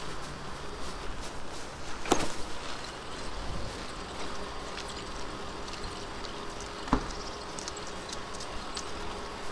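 Steady rush of wind and rolling noise while riding a bicycle, with two sharp knocks about two and seven seconds in.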